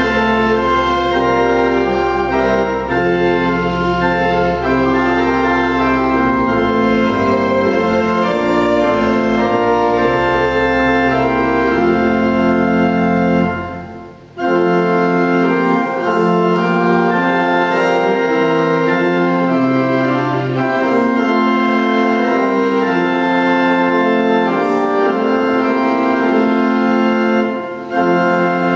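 Church organ playing held chords in slow phrases, with deep bass notes in the first half that drop out after a brief break about halfway through; another short break comes near the end.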